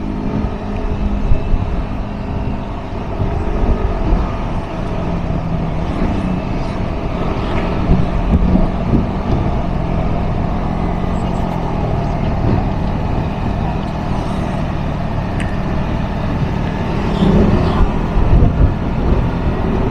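Yamaha NMAX 155 scooter's single-cylinder engine running steadily at low cruising speed, under a constant rush of wind and road noise.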